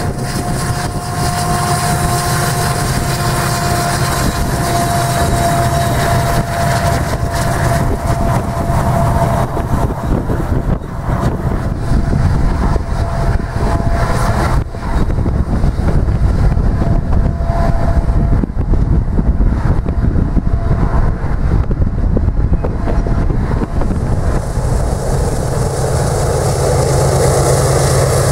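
Union Pacific diesel freight trains passing: locomotives and a long double-stack container train rumbling by, with a steady whine over the first several seconds and the cars' wheels knocking over rail joints in the middle. Near the end a different set of diesel locomotives hauling covered hoppers is heard.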